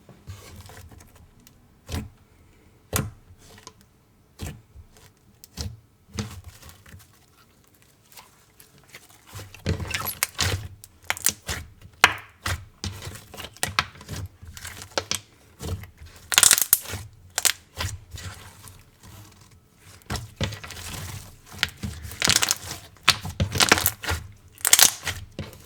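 Thick, glossy slime with foam chunks mixed in being played with by hand for ASMR: squelches, sticky pops and crackles. Sparse, scattered clicks and pops at first, then dense crackling and squishing from about ten seconds in.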